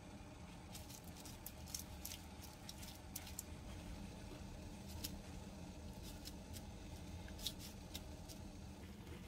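Wooden spoon pressing and spreading cooked rice over crisp dried laver on a wooden cutting board: faint, irregular soft clicks and crinkles over a low steady hum.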